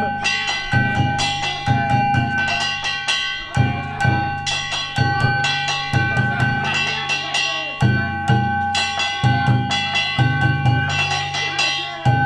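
Danjiri festival music: taiko drums and small metal hand gongs struck in a rapid, steady rhythm, the gongs ringing on continuously over heavy drum beats.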